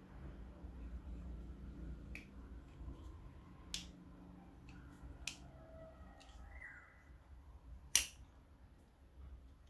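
Sharp clicks from handling a Cold Steel Talwar folding knife: a few light clicks, then one loud snap about eight seconds in as the blade is folded shut into the handle.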